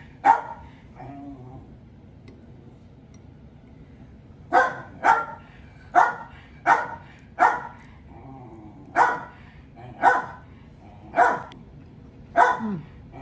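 A pet dog barking repeatedly in short, sharp barks: one at the start, then after a pause of about four seconds a run of nine barks about a second apart. The dog is after a share of the food being eaten.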